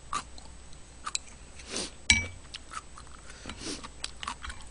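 A spoon clinking against a ceramic soup bowl while eating, with one sharp ringing clink about two seconds in among softer clicks and chewing sounds.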